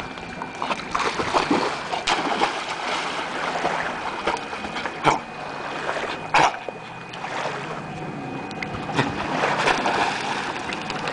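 Dogs swimming and splashing in lake water while retrieving a tennis ball, in uneven surges of splashing, with two sharp knocks midway.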